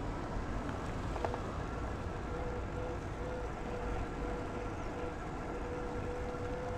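Wind and road rumble while riding a bicycle, with a steady whine from about a second in.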